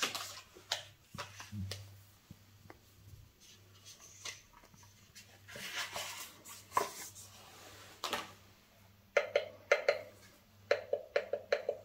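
Handling of a Xiaomi Mi Smart LED Desk Lamp Pro: light plastic knocks and taps as the lamp is handled, and a paper leaflet rustling as it is lifted off the round base about halfway through. Near the end comes a quick run of sharp clicks as the gloved hand works the knob on the base.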